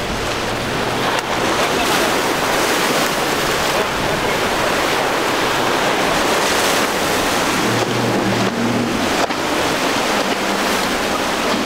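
Rough surf and churning wake water rushing steadily, with wind on the microphone. Boat outboard engines run low under the water noise.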